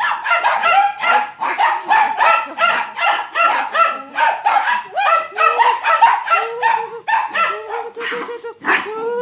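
Several dachshunds barking angrily at a vacuum cleaner: rapid, overlapping barks and yips, several a second, with some longer drawn-out barks in the second half.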